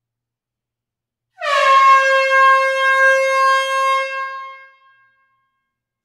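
Air horn sounding one long blast, starting about a second and a half in with a slight dip in pitch at the onset, held steady for about three seconds, then fading out.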